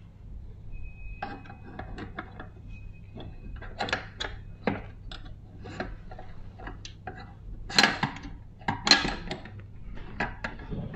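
Metal parts of a Retrol SE-02 model steam engine clicking and clinking as its flywheel is handled and fitted onto the flywheel shaft, with two louder knocks near the end.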